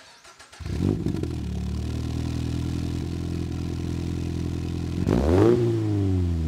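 Toyota GR86/Subaru BRZ 2.4-litre flat-four starting through an aftermarket muffled axle-back exhaust: a short flare about a second in, then a steady idle. Near the end a single quick rev, rising sharply and dropping back to idle.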